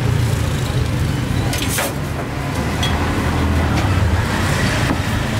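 A motor vehicle's engine running close by with a steady low rumble, amid street traffic noise, with a brief sharp knock about two seconds in.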